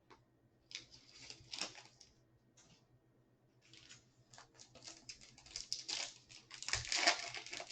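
Handling of trading cards and a card-pack wrapper: scattered clicks and crinkly rustling, sparse at first, then denser and louder toward the end as the next pack is picked up and torn open.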